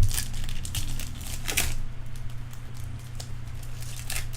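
Crinkling and rustling of baseball card packs and cards being handled, in a few short bursts, over a steady low hum.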